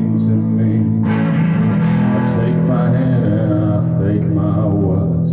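A song performed live on guitar, with a man's voice singing over the strumming.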